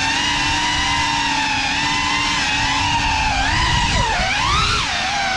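GEPRC Cinelog 35 cinewhoop drone's brushless motors and ducted propellers whining, holding a steady pitch for about three and a half seconds, then swooping down and up as the throttle changes.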